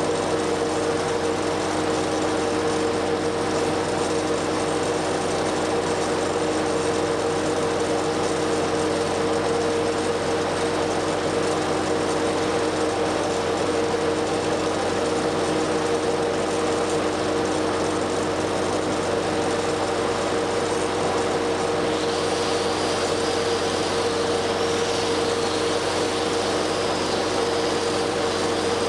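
A 1963 Lincoln SA-200 welder's four-cylinder gasoline engine running at a steady speed. About three-quarters of the way through, a stick-welding arc strikes with 3/16-inch 7024 Jet-Rod electrode and crackles and hisses over it, while the engine holds its speed under the welding load without bogging.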